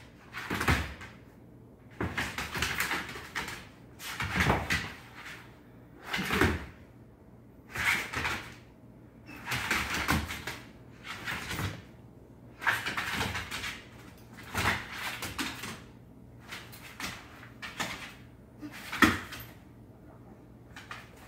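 Two dogs play-fighting on a hardwood floor: repeated bursts of paws scuffling and scrabbling on the boards, one every second or two, with a sharp bump near the end.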